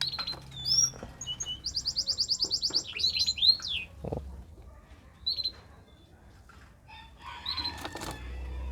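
Aviary songbirds calling: a fast run of repeated high down-slurred notes about two seconds in, then scattered high whistles and chirps. A short rustling flutter comes near the end.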